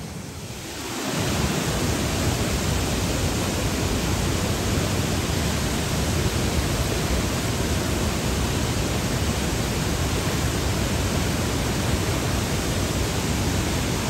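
Bardharya waterfall's water rushing: a steady, even noise of falling and flowing water that grows suddenly louder about a second in, then holds.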